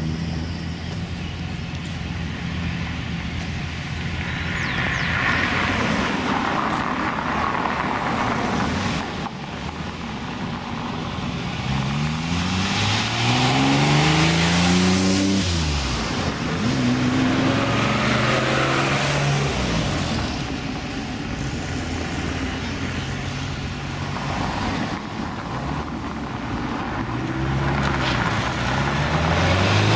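Classic sports cars driving past one after another. About halfway through, one engine revs up with a rising note and drops sharply in pitch as it passes close by; other engines follow with steadier notes, and another rises near the end.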